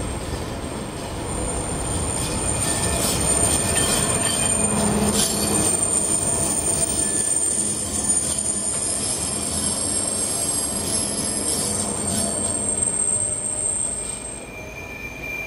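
Articulated light-rail tram rounding a tight curve in street track, its wheels squealing in a steady high-pitched screech over the rumble of the passing cars. The squeal cuts off shortly before the end.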